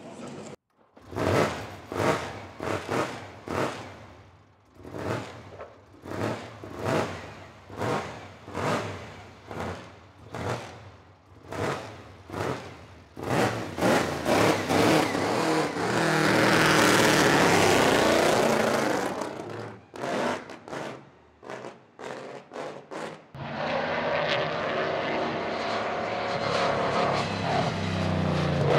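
Mercedes-Benz W 125 Grand Prix car's supercharged straight-eight engine revved in short blips over and over, then a long, loud burst of throttle as the car pulls away, and near the end a steady drone as it runs on the circuit.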